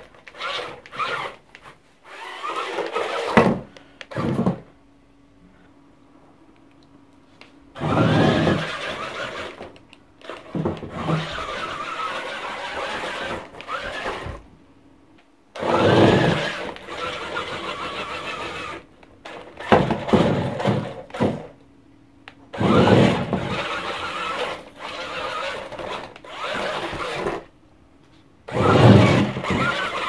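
Small electric motor and gears of a homemade cardboard RC monster truck whirring in repeated bursts of a few seconds, each rising in pitch as the motor spins up, with short stops between as the car is driven over cushions.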